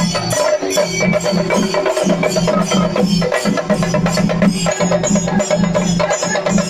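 Chenda melam: a troupe of Kerala chenda drums beaten with sticks in a fast, dense, unbroken rhythm.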